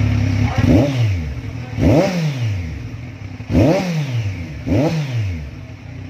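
Kawasaki Z1000 inline-four, fitted with a mid pipe and an Akrapovic slip-on muffler, blipped four times from idle. Each rev rises quickly and then falls back to idle.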